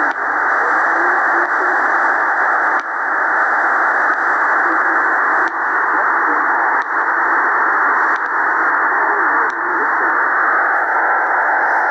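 XHDATA D-808 shortwave radio in upper sideband on 2749 kHz: loud, steady static hiss with a faint, barely intelligible voice of the Canadian Coast Guard navigational warnings and weather broadcast buried in it. Sharp static clicks come every second or two.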